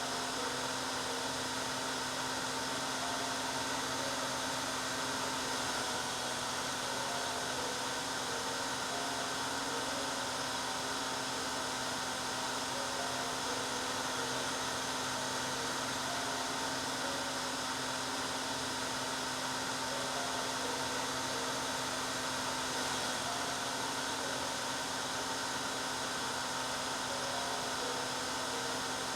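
Hair dryer running steadily: an even, continuous blowing hiss with a constant motor hum, no change in speed.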